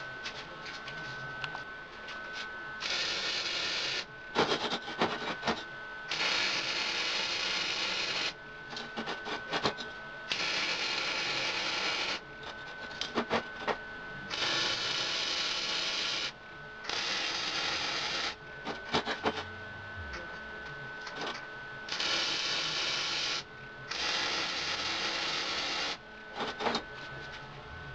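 Flux-core wire-feed arc welding on scrap steel in short runs: about seven bursts of steady arc crackle, each one to two seconds long, with clicks and brief crackles in the pauses between them.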